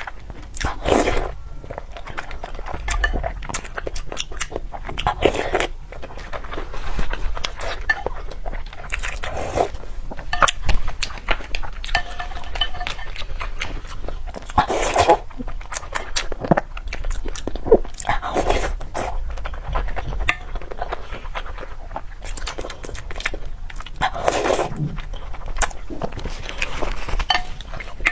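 Close-up eating sounds: wet chewing and smacking with many small clicks, and a few louder bursts of biting and mouth noise every several seconds.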